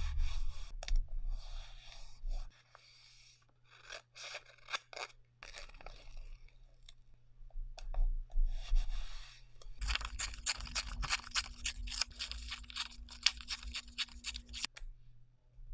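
Sheets of scrapbook paper being rubbed flat and rustled by hand, in short separate bursts. From about ten seconds in, a strip of patterned paper is torn slowly by hand with a dense crackling for about five seconds, which stops abruptly.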